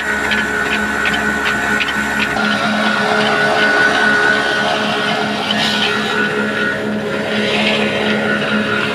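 Old diesel engine running steadily as it drives a small wheat flour mill (chakki), a constant mechanical hum with a steady whine from the mill. There are light regular ticks in the first second or so.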